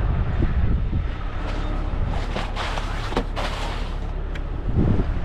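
Wind buffeting the microphone as a steady low rumble, with several short clinks and rattles of tow chain being handled at the wrecker's underlift between about one and a half and three and a half seconds in.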